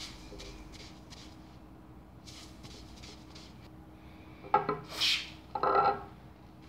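A cloth being rubbed over an LP record's cardboard sleeve in soft, scattered wiping strokes. About four and a half seconds in come a few louder short sounds: a click, a brief hiss and a short pitched sound.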